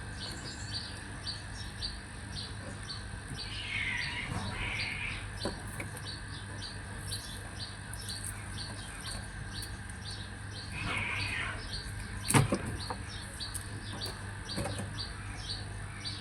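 Birds chirping: a steady run of short high chirps about three a second, with a few louder chirping calls, over a steady low hum. A single sharp knock sounds about twelve seconds in.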